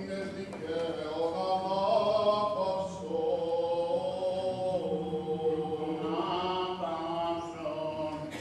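Byzantine chant of the Greek Orthodox funeral service, sung in long held notes that move slowly from pitch to pitch.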